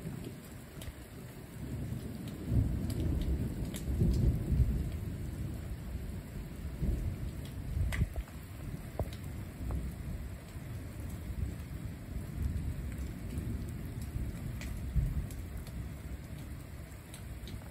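Thunder rumbling low and long, swelling about two seconds in and rolling on in waves, over falling rain with scattered drop ticks.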